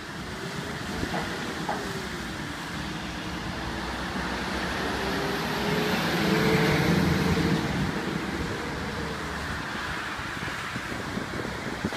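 Road traffic passing on a wet road, a white light truck going by close with its engine tone rising and swelling about six seconds in, then fading. Under it, a steady rush of water from a broken fire hydrant spraying up out of the ground.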